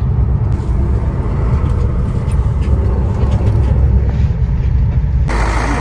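Bus engine and road rumble heard from inside the passenger cabin: a steady low drone with light rattling. Near the end a louder hiss joins for about a second.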